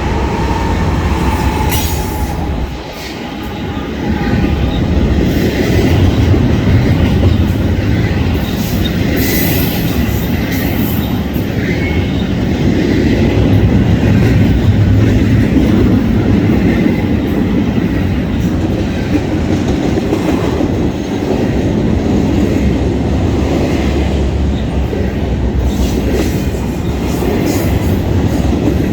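BNSF intermodal stack train rolling past close by: a loud, steady rumble of steel wheels on rail, with clicks as the wheels pass over rail joints and a few brief wheel squeals.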